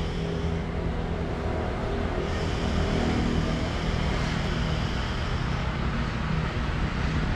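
Steady outdoor street ambience, a continuous low traffic rumble.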